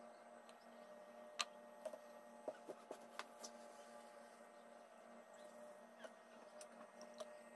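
Faint clicks and scrapes of a metal ice cream scoop working through frozen avocado ice cream in a glass dish, over a low steady hum. The sharpest click comes about a second and a half in, with a cluster of smaller ones after it.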